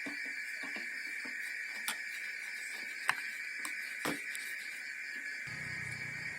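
Steady, high-pitched drone of an insect chorus, with three sharp clicks at about two, three and four seconds in.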